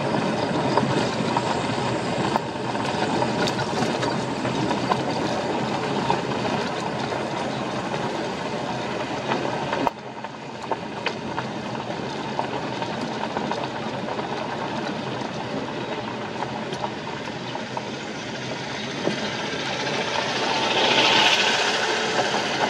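Car tyres rolling over a gravel road, heard from inside the cabin: a steady crunching rumble with small stones ticking against the car. The crunch grows louder and hissier near the end as the car turns onto a loose gravel yard.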